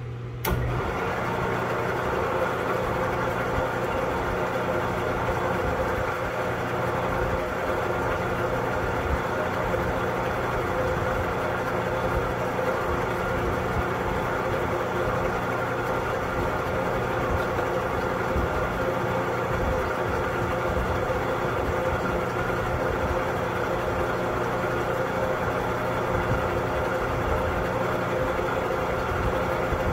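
Drill press switched on about half a second in, then running steadily and loud, its spindle turning a dial indicator inside a head-stud hole to centre over it before drilling and tapping.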